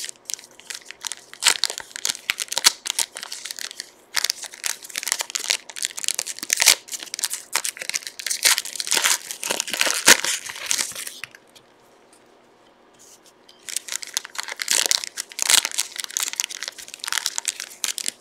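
Mosaic basketball card pack wrappers being torn open and crinkled in the hands: dense crackling that runs about eleven seconds, stops for about two seconds, then starts again.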